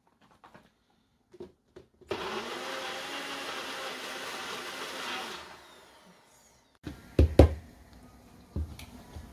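NutriBullet personal blender running for about three seconds, chopping a raw-mango and green-chilli mixture, then winding down. A few sharp knocks follow as the plastic blender cup is lifted off the base and set down.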